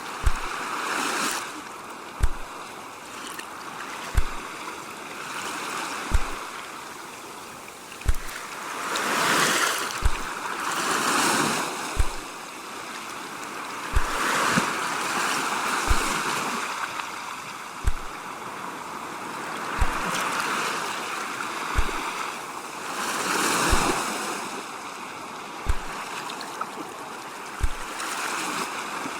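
Ocean waves washing in and drawing back in slow swells, with a short deep thump repeating evenly about every two seconds.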